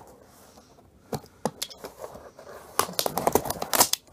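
A pocketknife blade cutting open a cardboard mailing box: a few light clicks, then about a second of scraping and tearing near the end.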